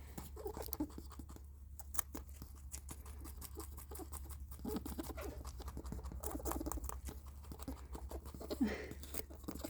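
Pet rabbit squeaking in many short, repeated squeaks among small clicks, over a steady low hum.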